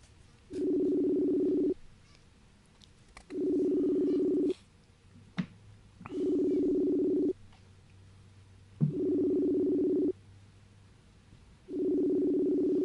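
Ringback tone of an outgoing phone call ringing unanswered: five low buzzing rings, each a little over a second long, about every three seconds.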